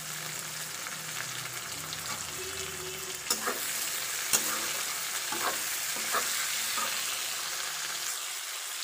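Sliced onions, tomatoes and green chillies sizzling in hot oil in a metal wok as a metal spatula stirs them, with a few sharp clicks of the spatula against the pan.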